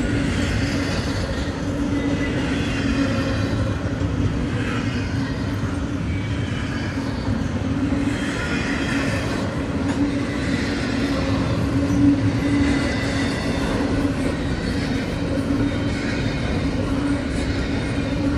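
CSX double-stack intermodal freight train's loaded well cars rolling past close by: a steady rumble of steel wheels on rail, with a faint high wheel squeal now and then.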